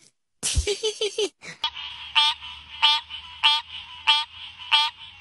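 A green tree frog calling: a loud, rapidly pulsed croak repeated about every two-thirds of a second, with its throat sac inflated, over a faint steady hiss. The first second and a half holds a short noisy sound with a squeaky pitched part.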